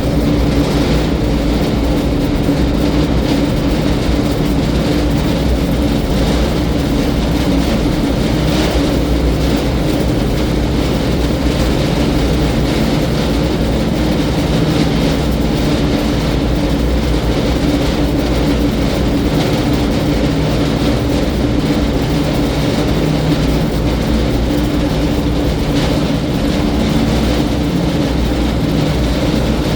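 TR2 wood grinder with a 25 hp motor running steadily: a loud, constant mechanical drone with a steady hum.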